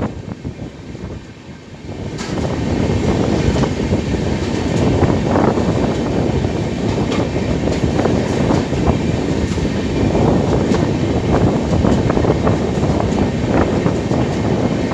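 Passenger express train running, heard from its open coach doorway: a steady rush of wheel and rail noise with frequent irregular clicks, rising to full loudness about two seconds in.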